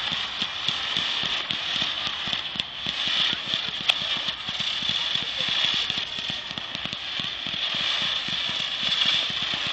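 Fireworks crackling and popping in a rapid, unbroken stream as ground-fired fountains and shells go off, with one sharp crack about four seconds in.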